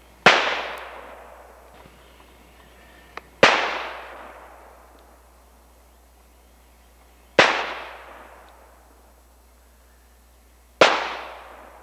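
Taurus .44 Special five-shot revolver fired four times, a few seconds apart, each shot dying away in a long echo.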